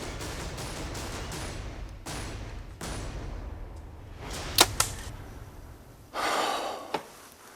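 A bow shot: a sharp, loud snap about four and a half seconds in, with a second crack a fraction of a second later. A loud rushing noise follows about a second and a half after.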